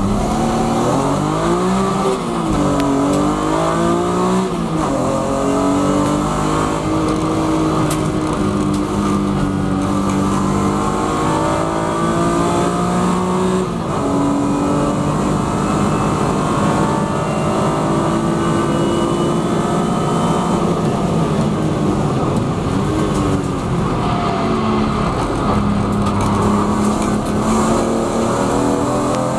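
BMW E36 M3 Evo's 3.2-litre straight-six racing, heard from inside the cabin: it climbs through the gears with quick drops in pitch at the shifts in the first few seconds, holds a high steady note down a straight, then drops lower about halfway through and dips and picks up again near the end.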